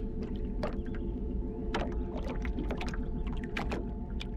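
Dark ambient drone from a trailer score: several low sustained tones held together, with scattered sharp clicks and creaks throughout.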